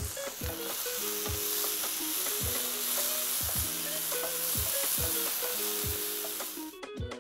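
Chopped carrot, tomato and kangkung stir-frying in hot oil in a pan, a steady sizzle as a wooden spatula tosses them. The sizzle drops away near the end.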